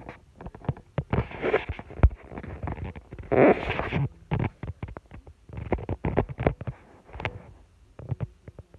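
Handling noise from a phone being moved by hand: irregular rustling and rubbing against fabric, with many sharp clicks and knocks, fewer and quieter in the last couple of seconds.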